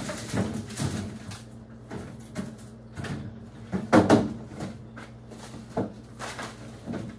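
Groceries being put away into a refrigerator's plastic bottom drawer: a string of knocks and clatters as boxes are pushed in and handled, the loudest about four seconds in.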